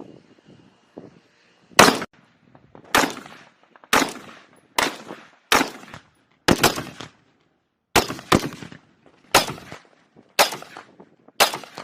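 Rifle shots fired one at a time on a range, about a dozen in all, roughly one a second with a couple of quick doubles, each with a short echoing tail.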